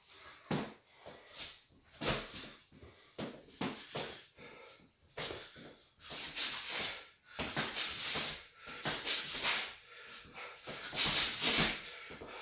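A boxer's short, sharp hissing exhalations with each punch while shadowboxing hooks, coming irregularly about one or two a second, with a loud close pair near the end.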